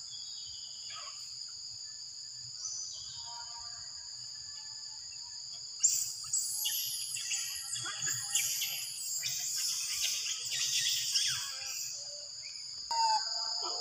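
Forest insects droning steadily at a high pitch. From about six seconds in, a spell of loud, high squealing and chirping animal calls lasts several seconds, and more calls come near the end.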